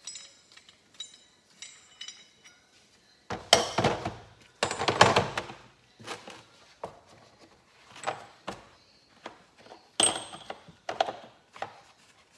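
Steel flywheel puller and its bolts being put away in a plastic tool case: scattered clinks and knocks of metal on plastic, with two louder rattling clatters about three and a half and five seconds in, and a sharp knock about ten seconds in.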